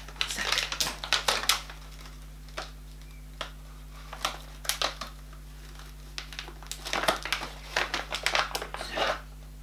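Dog-treat packet crinkling as it is handled and pulled open, in scattered short crackles and rustles.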